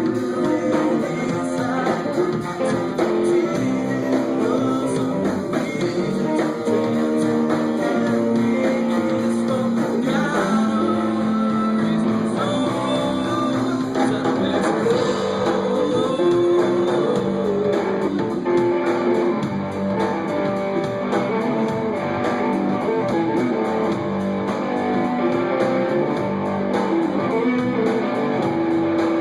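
A live band playing an instrumental passage between sung verses, with guitar to the fore.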